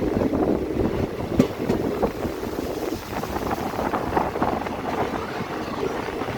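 Train running along the track: a steady rumble with scattered sharp clicks from the wheels and rails.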